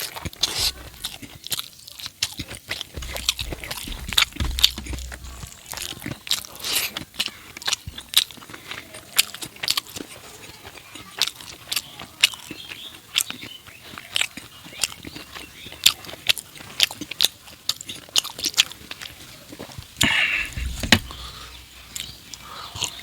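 Close-miked mouth sounds of a person eating fatty pork curry with rice: chewing and lip-smacking with many sharp, irregular wet clicks, and a denser, louder patch about twenty seconds in.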